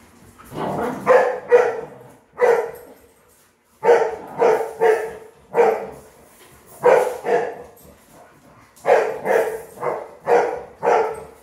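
Dog barking repeatedly, about fifteen sharp barks that come in quick runs of two or three with short pauses between the runs.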